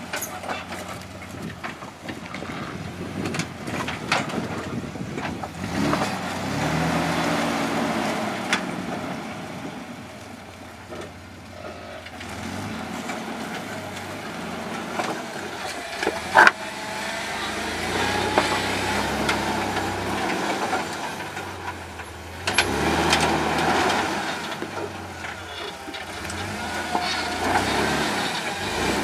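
Jeep CJ7 engine revving in surges as it crawls over a rock ledge, with a few sharp knocks, the loudest about sixteen seconds in.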